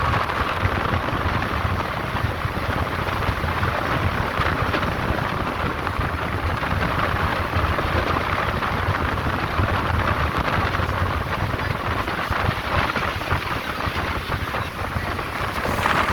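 Wind buffeting the microphone over the steady running noise of a speedboat at speed.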